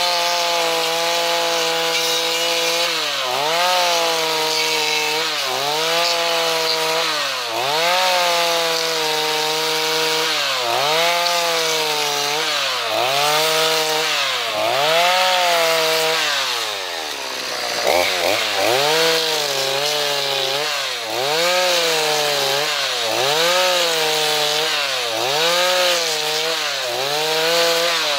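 Two-stroke chainsaw at high revs driving a mini power-gouge mill attachment that cuts a channel along a log. The engine pitch sags and climbs back about every second and a half as the cutter bites into the wood and eases off, with one deeper drop about two-thirds of the way through.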